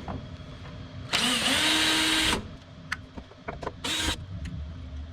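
Cordless power drill running for about a second, its motor whine rising and then holding steady, then a shorter burst about four seconds in, with small tool clicks between. The drill is being used to take the fuel pump out of the tank.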